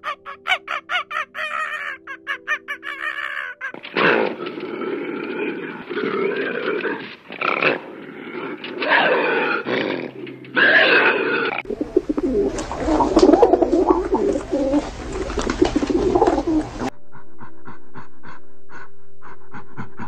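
A run of wild animal calls: fast repeated chattering calls from a baboon, then a Eurasian lynx's drawn-out harsh calls and a rough growl with a deep rumble. Quiet background music is under the first calls and plays alone for the last few seconds.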